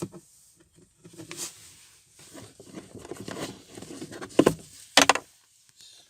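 Rustling and plastic handling sounds from working the Kia Rio's glovebox to reach the cabin air filter, with two sharp plastic knocks about four and a half and five seconds in.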